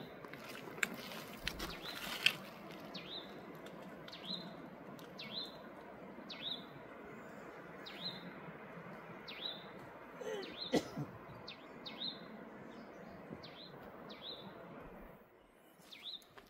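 A steady distant rushing noise, like wind, which the men take for a strong wind high up, though no trees are moving; it fades out near the end. Over it a bird repeats a short falling chirp about once a second, with a few sharp clicks in the first couple of seconds.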